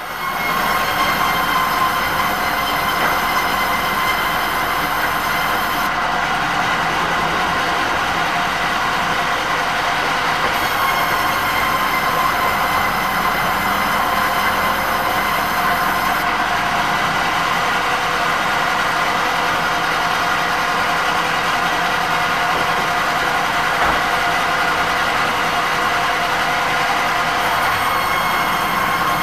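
Steady, loud mechanical running noise with a few faint held tones, unbroken throughout.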